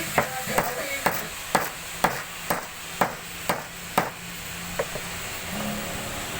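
Claw hammer striking steadily, about nine blows at roughly two a second, then one lighter tap.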